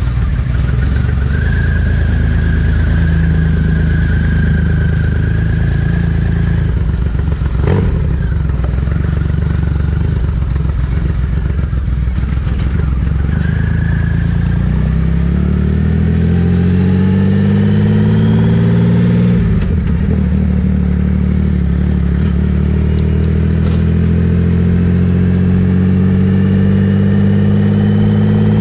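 Triumph motorcycle with sidecar running steadily, with one sharp clunk about eight seconds in, then accelerating away: the engine note rises, drops briefly at a gear change and rises again.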